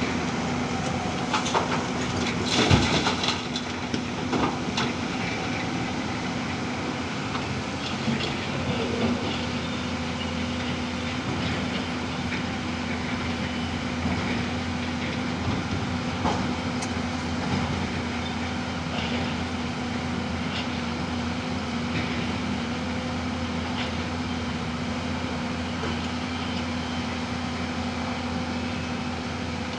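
Diesel engine of a JCB digger running steadily with a constant low hum, with a few metallic knocks and clanks about two to three seconds in.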